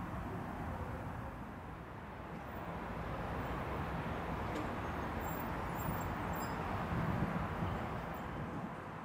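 Steady outdoor background noise of distant road traffic, with a few faint high chirps around the middle.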